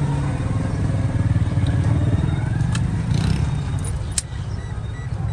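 A steady low rumble, with a few sharp plastic clicks as the steering column's combination switch assembly is handled and worked loose.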